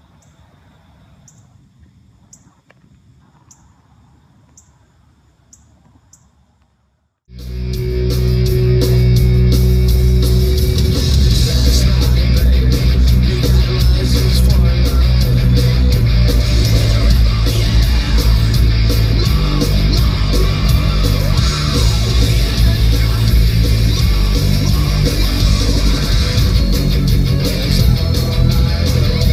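A faint hiss with soft ticks about every two-thirds of a second, then, about seven seconds in, loud rock music with guitar starts suddenly and carries on.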